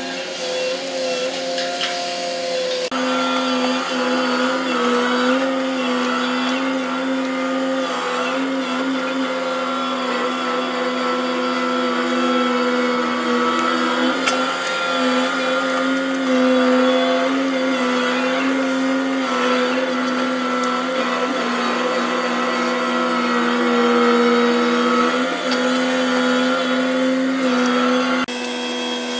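Steady machinery hum of a gravel carrier's grab crane, its engine and winches running as it unloads gravel, with the pitch shifting slightly as the load changes. The sound is sped up to double speed, and it changes abruptly at edit cuts about three seconds in and near the end.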